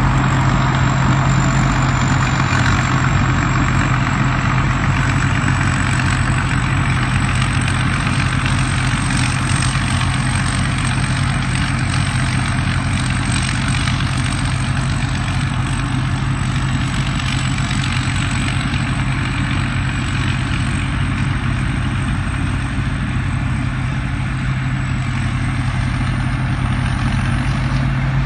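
Combine harvester's engine running steadily at constant speed, a deep hum with a thin high whine above it.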